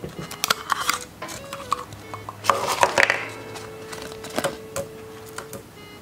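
Hard plastic capsule halves clicking and knocking as they are handled and pulled apart, then a thin plastic toy wrapper crinkling about two and a half seconds in. Soft background music plays underneath.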